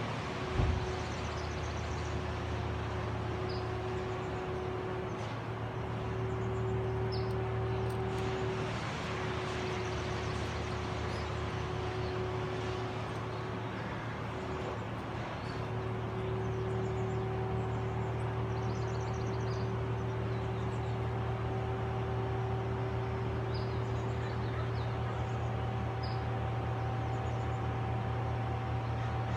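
An engine running steadily at an even idle, with no change in speed, and a brief thump about a second in. Faint birds chirp over it.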